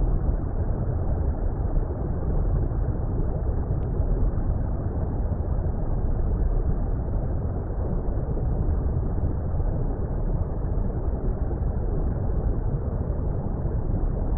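Steady, muffled low water rumble, an even noise strongest in the deep bass with nothing above the low-mid range.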